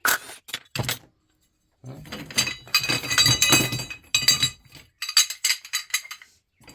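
Metal ceiling-fan parts clinking and rattling against each other as they are handled and sorted. There are sharp clicks at first, then a dense run of ringing clinks from about two seconds in, and scattered clicks near the end.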